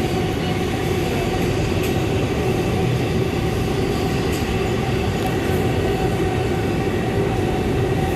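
NYC Subway R179 car running on the express track, heard from inside the car: a steady rumble of wheels on rail with an even, unbroken hum.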